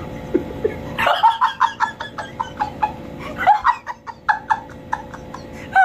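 A man laughing hard in quick repeated bursts, about five a second, starting about a second in, with a short break near the middle before it picks up again.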